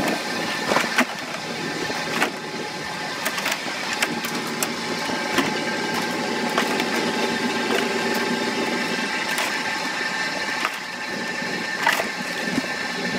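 Fishing boat machinery running steadily with a held whine, while snow crab shells clatter and knock irregularly as the catch is sorted into plastic bins by hand.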